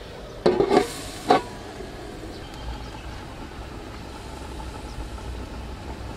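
Domed aluminium lid clanking onto the rim of an aluminium wok: a rattle of metal strikes about half a second in and one more clank just after a second, as the wok of braising pig stomach is covered. A low, steady hiss follows.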